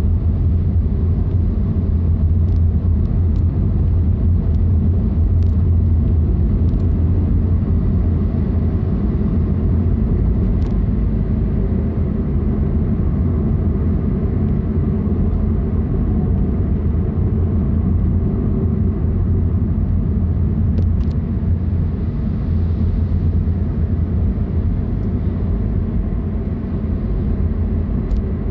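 Steady low rumble of a car on the move, engine and tyre noise blended together.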